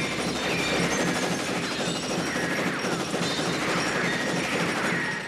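Rapid, continuous gunfire as two handguns shoot up a laboratory, mixed with glass and debris smashing and clattering. The barrage stops abruptly at the end.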